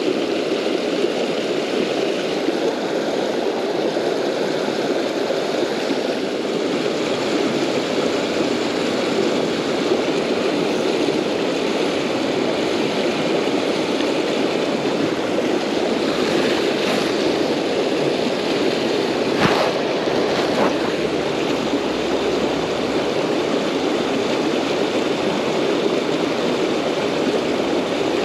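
Fast, shallow river water rushing over rocks in a riffle, a steady loud rush. A single brief sharp click comes about two-thirds of the way through.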